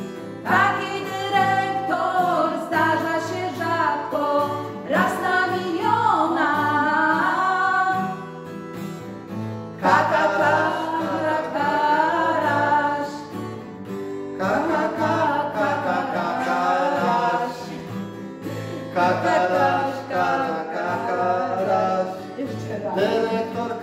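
Two women singing a song together to a strummed acoustic guitar, with a couple of short breaks in the vocal line.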